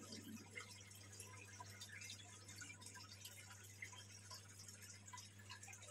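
Near silence: a faint steady low hum with scattered faint drips and trickles of water from the fish tank's circulating water.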